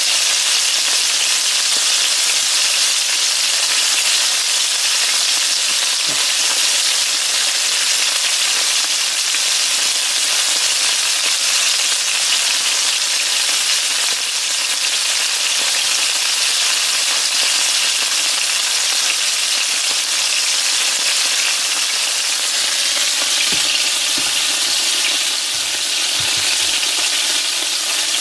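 Breaded fish fillets frying in shallow oil in a skillet, a steady sizzle.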